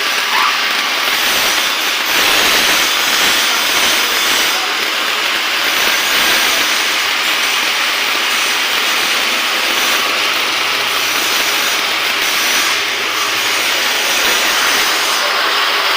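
Electric arc welding: a loud, steady hiss with no breaks.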